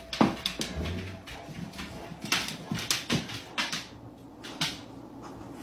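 A dog gives one short yelp that falls in pitch just after the start, then scattered sharp clicks and taps follow. The dog is agitated.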